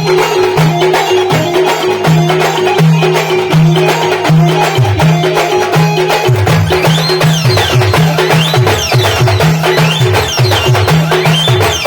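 Band music played loud, with a heavy repeating bass line and steady percussion; from about halfway through, quick rising and falling high notes join in.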